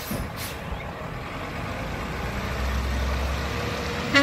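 Labrie side-loader garbage truck's diesel engine running as the truck manoeuvres, its low rumble swelling about two seconds in. A short hiss near the start and a sharp knock just before the end.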